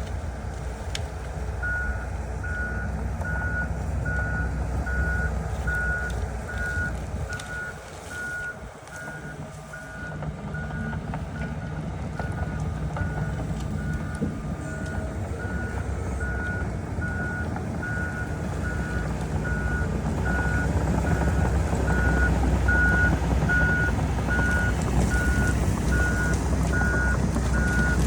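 A heavy machine's reversing alarm beeping steadily at one pitch, starting about two seconds in, over the rumble of its engine, which dips briefly and then runs louder from about twenty seconds in.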